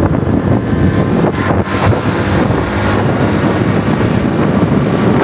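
Loud wind buffeting the microphone while riding a motorcycle, with the motorcycle's engine running steadily underneath.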